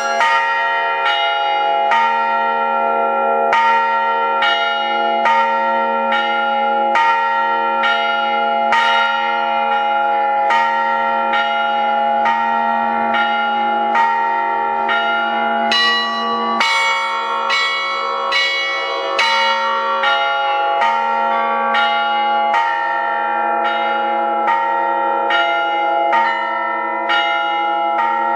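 Russian-style hand-struck bell ringing: thin-walled bells sounded together with thick metal bila (struck plates), in a steady rhythm of about two strokes a second over a continuous ringing hum of the lower bells.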